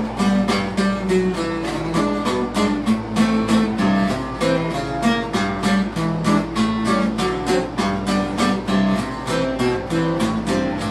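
Bajo sexto played solo: bass notes picked between quick, even strummed chords, about five strokes a second.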